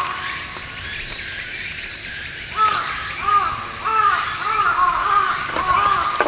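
A crow cawing: one call at the start, then a quick run of about seven harsh caws from about two and a half seconds in.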